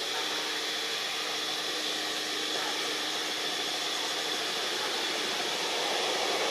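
Steady outdoor background hiss with a faint high steady tone in it, growing slightly louder near the end; no distinct calls or impacts.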